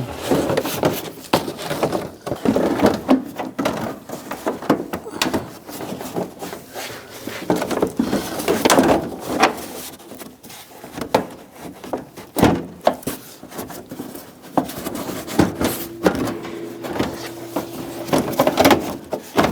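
Plastic inner fender liner being slid and pushed into place in a truck's wheel well: scraping, rustling and flexing of the plastic, with irregular knocks and clicks.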